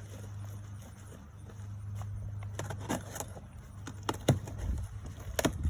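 A mailed package being handled and opened: scattered clicks and crackles of packaging, growing busier about halfway through, over a steady low hum.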